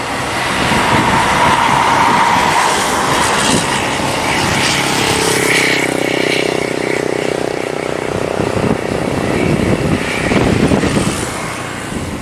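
Loud road traffic with a bus driving past close by, its engine and tyres making a dense noise that swells twice; a steady pitched drone holds for a few seconds in the middle.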